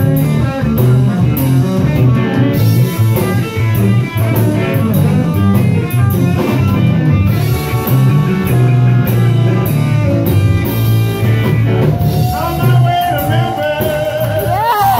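Live blues band playing: electric guitars over a bass line and drum kit. A man's voice starts singing near the end.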